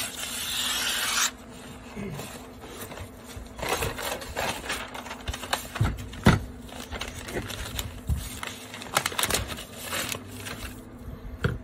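Pink butcher paper being cut with scissors and handled on a table: a long hiss of shears sliding through the paper at the start, then rustling, scraping and scattered knocks as the roll and sheets are moved, the loudest knock about halfway through.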